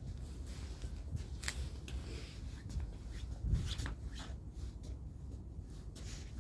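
Soft, irregular scuffs of a toddler's small footsteps on brick pavers, with light rustling over a low steady rumble.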